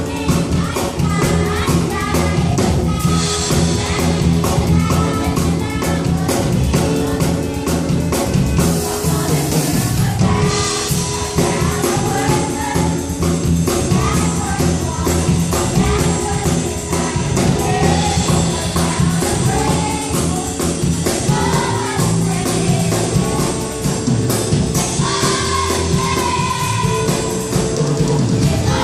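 Gospel choir singing with a band: voices carrying the melody over bass, drums and tambourine, playing on without a break.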